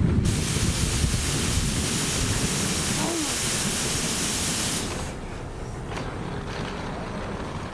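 Loud steady hiss of compressed air venting from a stopped NJ Transit commuter train's air system, cutting off abruptly about five seconds in.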